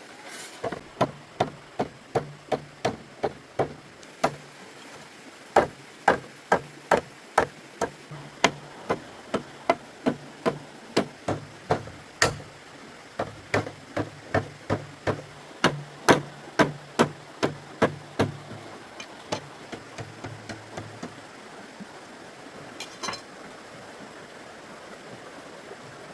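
A long steady series of sharp hammering blows, about two a second. They weaken and stop a few seconds before the end, with one last knock after a short gap.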